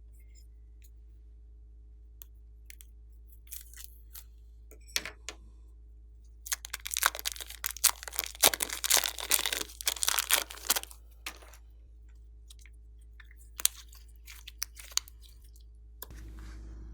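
Crunchy slime squeezed and pressed by hand: scattered clicks and pops, then a dense run of crackling for about four seconds in the middle, thinning back to occasional pops.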